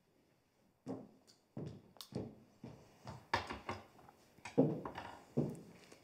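Footsteps of several people walking across a studio and onto a low stage, heels knocking on the hard floor, starting about a second in, with irregular thuds and taps.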